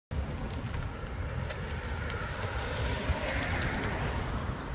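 Wind buffeting the microphone of a moving bicycle, with tyre noise and scattered light rattles as it rolls over a block-paved cycle path.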